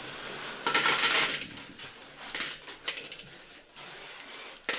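Coins clinking and jingling on a table as they are handled and sorted, loudest about a second in, followed by a few lighter single clinks.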